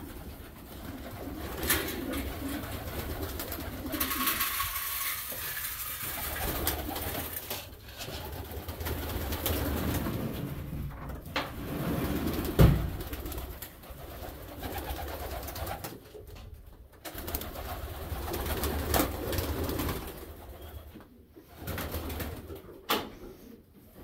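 Homing pigeons cooing, with a sharp knock about halfway through.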